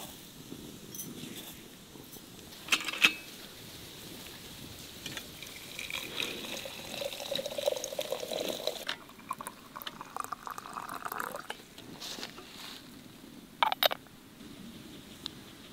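Water poured from a kettle into a ceramic teapot, the pitch of the pour rising as the pot fills. A couple of sharp knocks come about three seconds in, and two clinks near the end as the porcelain lid is set on the teapot.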